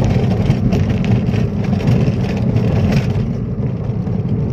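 Steady road and engine noise inside the cabin of a moving car, a deep, even rumble.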